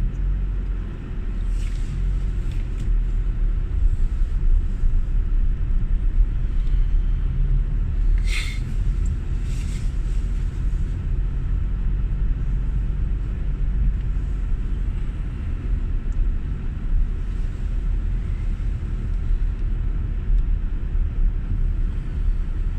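Steady low rumble of a car on the move, engine and road noise. A couple of short clicks come about eight and ten seconds in.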